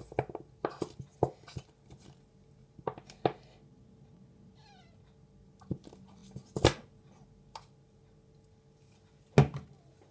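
Scattered clicks and knocks of slime being handled and mixed, two of them loud near the middle and near the end, with a short faint cat meow about four and a half seconds in.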